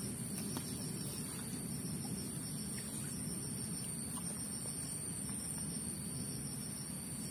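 Steady high-pitched insect chorus over an even low background rumble, with a few faint ticks.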